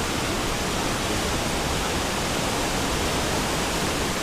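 Turbulent mountain river rushing steadily, an even, unbroken wash of water noise.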